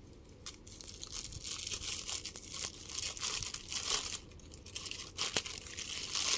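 Plastic wrapping crinkling and rustling, with small clicks, as a piece of cold-porcelain paste is taken out of it.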